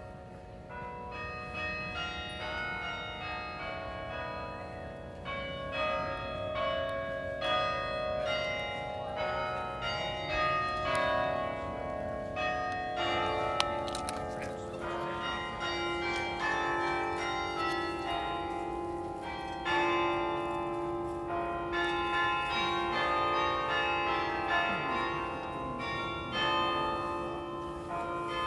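The Bok Tower carillon, a set of tuned bronze bells, playing a slow melody: struck bell notes follow one another and ring on into each other.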